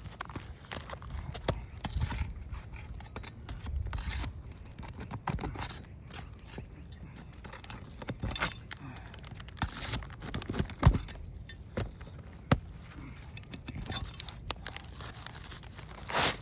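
Pry bar scraping and clinking under brittle roof shingles as they are lifted, with irregular crackling from the shingles tearing and a few sharp knocks, the loudest about eleven seconds in.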